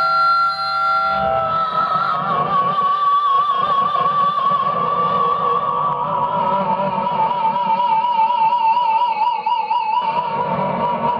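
Vintage Metal Axxe electric guitar played through an amp. A held note breaks off about a second and a half in, then one long sustained note with a wide, even vibrato drifts slowly down in pitch.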